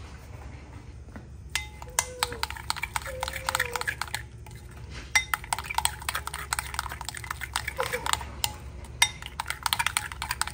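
Metal spoon stirring a thick yogurt marinade in a glass bowl, scraping and clinking rapidly against the glass. The stirring starts about a second and a half in and pauses briefly around four seconds in.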